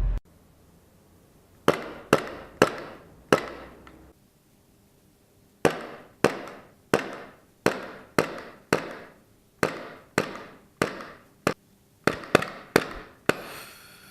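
KJW Glock 23 gas blowback airsoft pistol firing single shots, each a sharp crack with a short ringing tail. Four shots come first, then after a pause of about two seconds a long string at about two shots a second.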